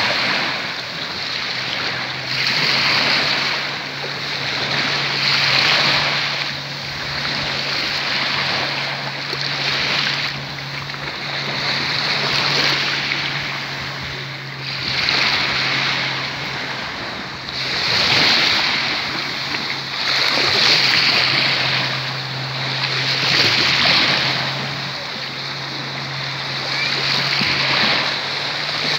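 Small sea waves washing up onto a sandy shore in shallow water, each wash of foam swelling and fading every two to three seconds.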